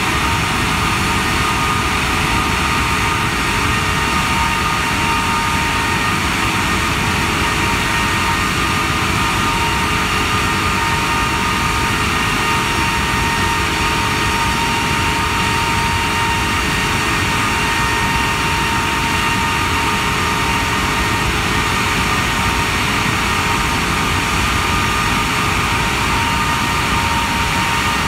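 Rolls-Royce Trent 895 three-shaft turbofan on a Boeing 777 running steadily at high power on a ground engine run: a loud, even rush with several steady whining fan tones over it.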